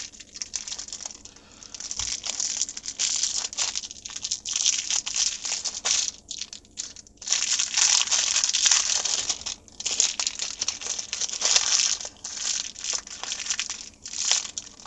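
Crinkling of plastic packaging being handled close by, in irregular crackly bursts with short pauses, as new capacitors are taken out.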